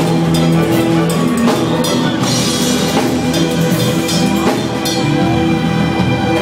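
Live reggae band playing an instrumental passage: a drum kit keeps time with cymbal crashes over held bass and chord notes.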